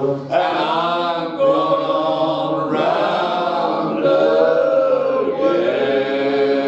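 Unaccompanied male voices singing in close harmony, drawing out the song's closing words in long held chords that shift every second or so.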